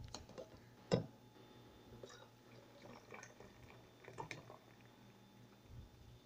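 Thick blended oat drink poured from a blender jar into a glass pitcher, faint liquid splashing and gurgling, with one sharp knock about a second in.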